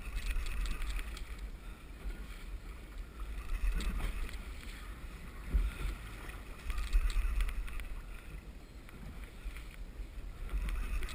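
Wind buffeting the microphone and choppy sea water slapping and splashing against a kayak's hull, with a few louder slaps.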